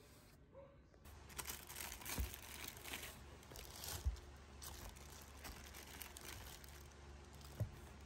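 Faint crinkling and rustling of plastic produce bags in a cardboard box, starting about a second in, with a few low thumps.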